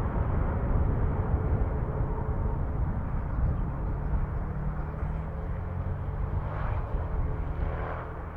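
Airliner engines rumbling as a landing aircraft passes close by, the sound slowly fading as it moves away.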